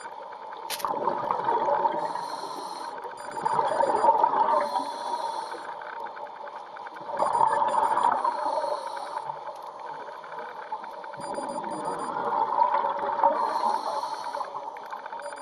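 Scuba regulator breathing heard underwater: a bubbly rush of exhaled air surges every three to five seconds, with quieter breathing hiss between.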